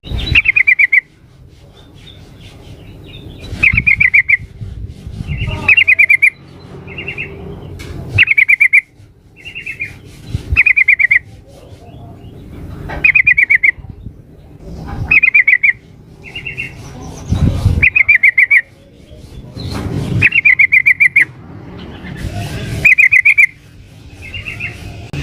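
Yellow-vented bulbul (trucukan) calling, which the uploader presents as a female calling to males: short bursts of rapid chirping notes, repeated every second or two over a low rumble.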